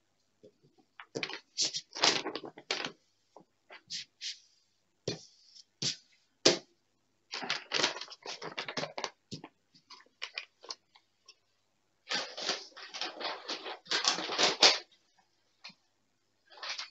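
Thin plastic sheet crinkling and rustling as it is handled and smoothed flat by hand, in three irregular spells of crackle with pauses between.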